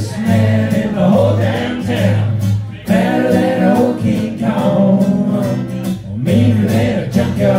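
Small live band playing a country-style song on guitars, with singing over the strummed chords and a steady bass line.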